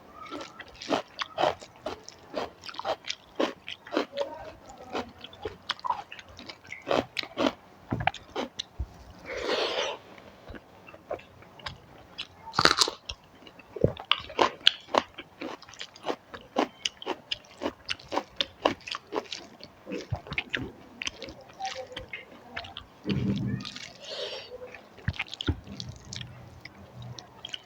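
Close-miked eating of rice and curry: steady chewing with many wet mouth clicks and smacks, and a few crunchier bites.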